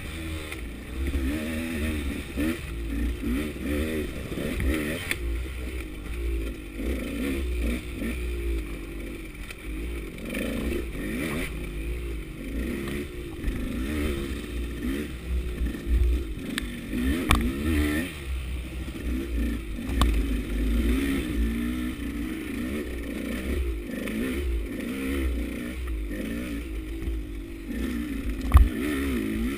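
KTM 200 two-stroke enduro bike's engine revving up and down without pause as it is ridden over rough trail, with the bike rattling and knocking over bumps. A single sharp knock stands out near the end.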